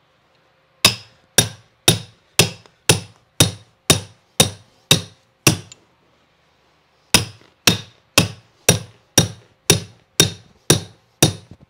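A hammer striking a carpet stair tucker, about two blows a second: about ten blows, a pause of a second or so, then about nine more. The blows drive the stair runner tight into the step onto the smooth-edge tack strip.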